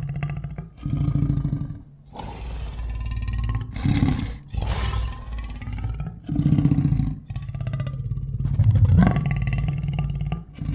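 Edited Giganotosaurus creature sound effects: a string of deep roars and growls, one after another with short breaks between them.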